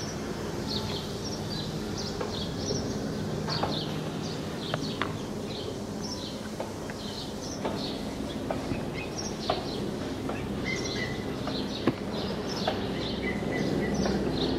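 Small birds chirping over and over in short high calls, over a steady low hum, with a few sharp clicks.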